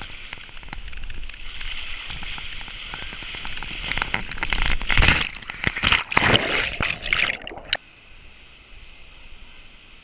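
Water rushing and splashing close around a person sliding down a wet natural rock slide, with heavier splashes about four to seven seconds in. The sound cuts off suddenly near the end, leaving a quieter, steady rush of water.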